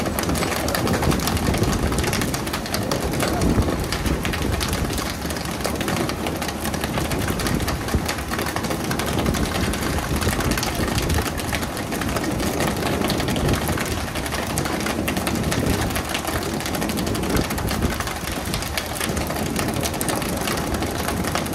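Fishing boat's engine running steadily under a constant rush of water and spray noise.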